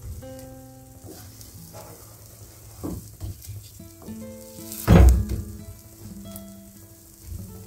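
Pumpkin and egg batter sizzling gently in a ceramic-coated frying pan while a wooden spatula cuts through it, knocking against the pan a few times, loudest about five seconds in.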